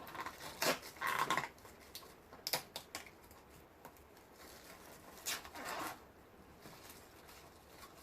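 Protective film being peeled off a clear Lexan RC body shell: irregular rustles and small sharp clicks from the plastic, with the busiest stretches in the first second and a half and again a little after five seconds.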